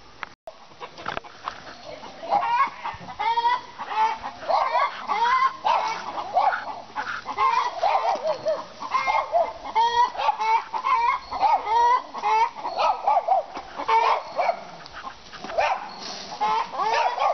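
A flock of chickens clucking, with many short calls overlapping one another the whole time.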